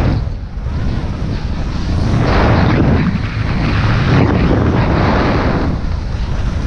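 Wind buffeting the microphone of a camera worn by a skier at speed, with skis scraping over groomed snow. The scraping swells and fades about every three seconds, once for each turn.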